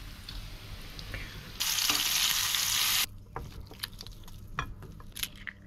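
Lentil-and-prawn fritters sizzling as they shallow-fry in hot oil in a pan. The sizzle gets much louder for about a second and a half in the middle, then gives way to soft scattered clicks and rustles of hands peeling boiled potatoes.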